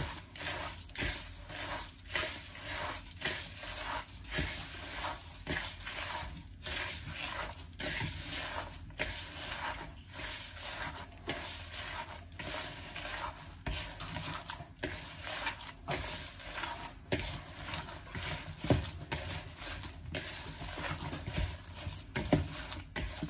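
A bare hand mixing crumbled tofu with breadcrumbs and chopped vegetables in a bowl: repeated soft squishing and rustling strokes, about one or two a second.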